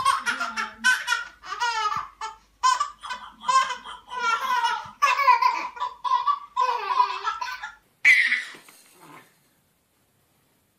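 A baby boy laughing in a long run of high-pitched, repeated bursts of giggling, with a last, noisier burst about eight seconds in.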